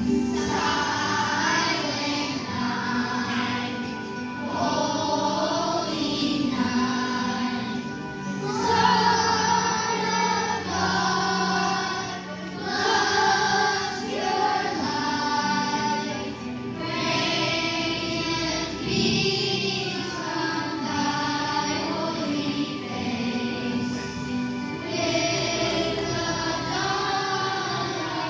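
A group of voices singing a song together over instrumental accompaniment.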